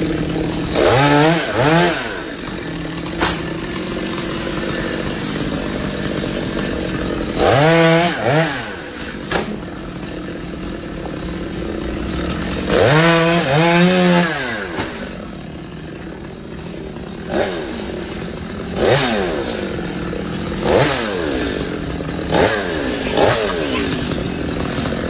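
Chainsaw running at idle and revved up in short bursts about seven times, the engine pitch rising and falling with each burst.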